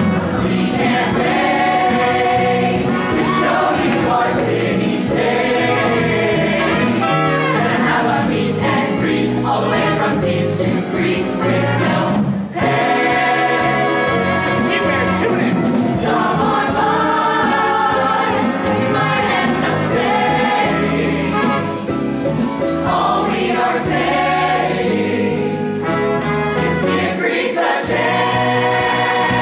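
Musical theatre ensemble number: a cast singing together over a band with a steady beat.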